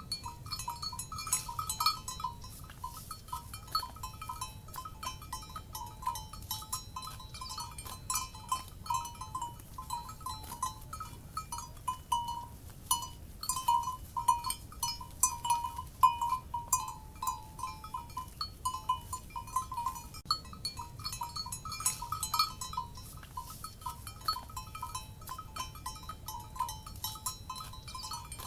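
Cowbells clanking continuously and irregularly, two or so bells ringing at nearly the same pitch with sharp metallic clanks, as the animals wearing them move about.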